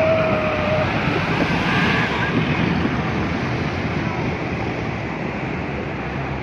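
Off-road jeep ploughing through a shallow muddy river: a dense rush of splashing water with engine noise and wind on the microphone, easing off a little over the last couple of seconds.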